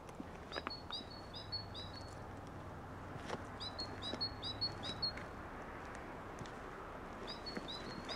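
A small songbird singing a short phrase of quickly repeated two-note figures, three times with pauses between, over a faint low rumble.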